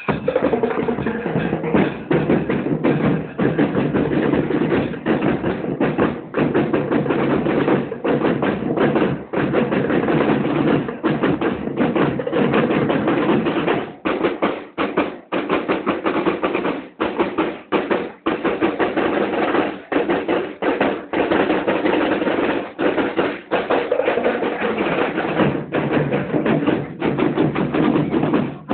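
Marching show band playing, carried by snare drums and bass drums beating a fast, steady rhythm.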